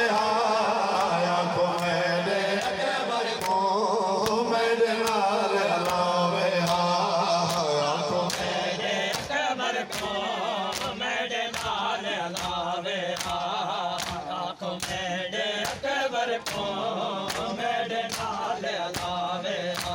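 Group of men chanting a noha in unison, with rhythmic matam chest-beating slaps keeping time, about two a second, growing clearer in the second half.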